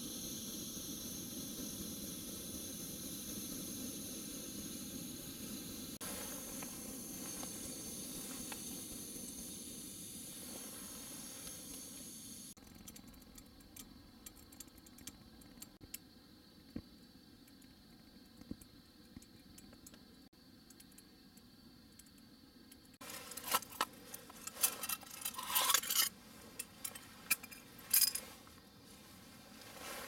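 MSR liquid-fuel gasoline camp stove burning with a steady hiss, which drops off sharply about twelve seconds in. Near the end come a few seconds of sharp clinking and clattering of small hard objects.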